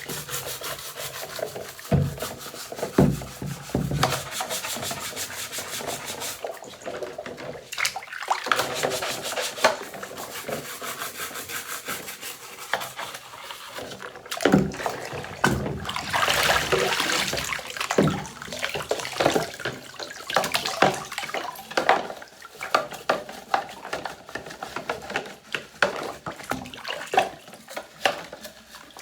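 Rapid back-and-forth scrubbing of vacuum parts during washing, with a few knocks of the parts being handled.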